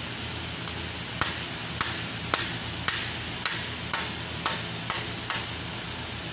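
A metal tool striking metal on the car's underside: about ten sharp taps, roughly two a second, each with a short ring. A steady fan hum runs underneath.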